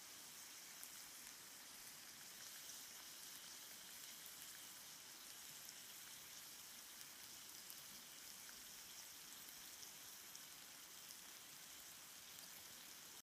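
Salmon frying in a pan on a small wood-burning firebox stove: a faint, steady sizzle with scattered tiny pops.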